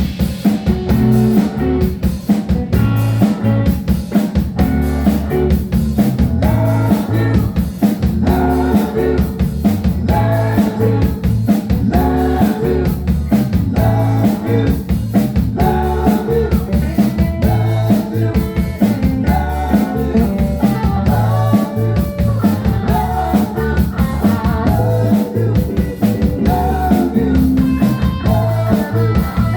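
Rock music played by a band: a drum kit keeping a steady beat under guitar, with a melody line on top.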